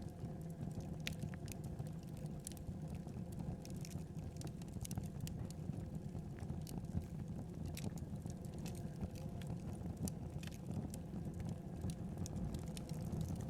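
Wood fire burning in a fireplace: irregular crackles and small pops over a steady low rumble.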